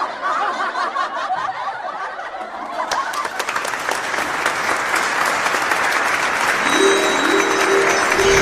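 Laughter for about the first three seconds, then a sudden burst of applause that builds, with music of short repeated notes coming in near the end.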